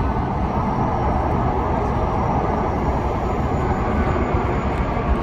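Alstom Metropolis C830 metro train running through the underground trackside as it approaches the station: a loud, steady rumble.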